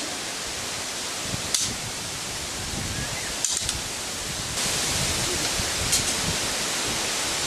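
Several short sharp clacks of shashka blades striking one another in sabre fencing, over a steady hiss and low rumble of outdoor noise.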